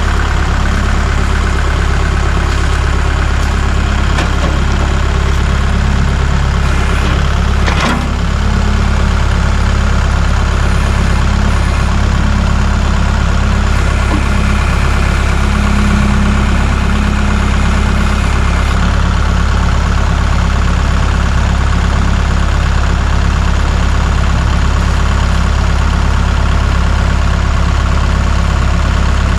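An engine idling steadily with a constant low hum, with one brief sharp click about eight seconds in.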